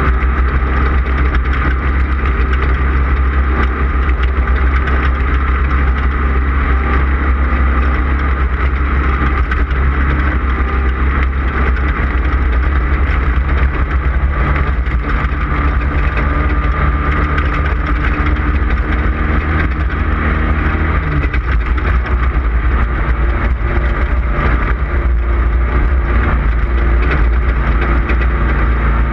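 Off-road race vehicle's engine running hard at speed, a continuous loud rumble mixed with rushing road and wind noise. The engine note changes about 21 seconds in.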